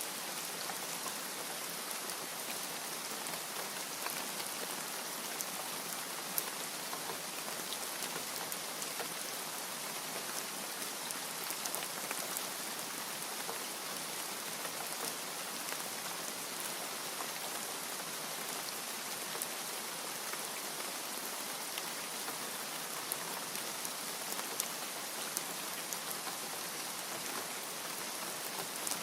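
Steady rain with many small drops ticking on a surface.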